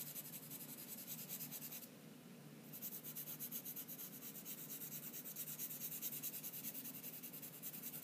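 Dark gray chalk pencil shading on drawing paper: soft, rapid back-and-forth scratching strokes, pausing briefly about two seconds in.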